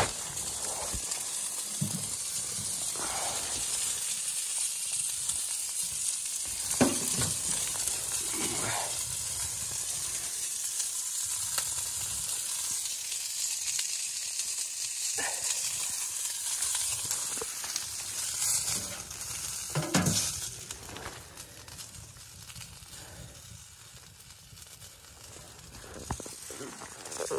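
Wood fire crackling and popping now and then inside a small portable tent stove, over a steady hiss that fades somewhat after about twenty seconds.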